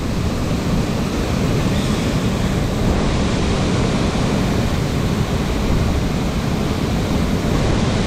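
Mountain stream water rushing steadily, a continuous even roar of flowing water.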